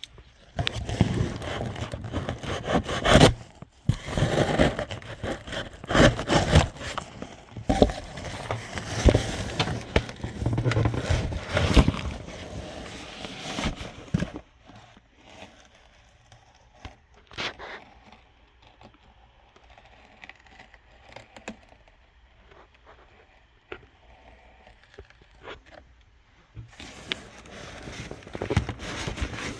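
Cardboard boxes being handled: an inner box scraped and slid out of an outer shipping box, with crinkling packaging and knocks, for about the first half. Then quieter handling with occasional light taps, getting louder again near the end.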